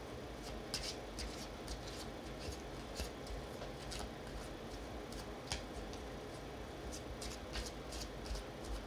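A tarot deck being shuffled by hand: a run of short, irregular card flicks and slides.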